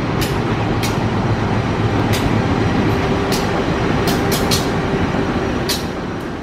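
Passenger train rolling through the station at steady speed: a continuous rumble with sharp wheel clacks at uneven intervals as the wheels cross rail joints and points.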